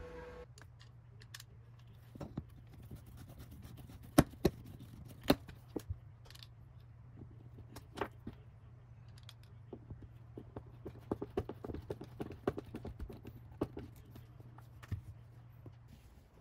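Scattered clicks, taps and knocks of an IKEA MICKE flat-pack desk being put together by hand: boards and small metal fittings handled, with a run of quick clicks about two-thirds of the way through.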